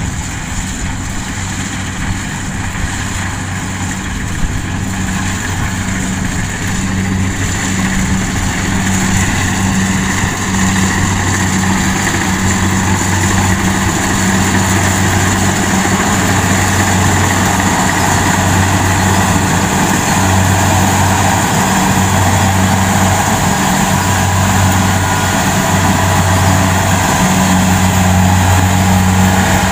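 Kubota DC70 rice combine harvester running in the field, its diesel engine and cutting and threshing gear a steady drone that grows gradually louder as the machine draws close.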